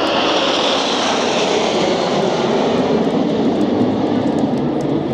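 Jet noise from the Red Arrows' nine BAE Hawk jets flying past in close formation. A high hiss fades over the first couple of seconds, leaving a deeper, steady rumble as the formation goes by.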